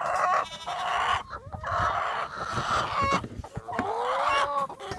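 A flock of laying hens clucking and squawking together, with a few louder drawn-out calls in the second half.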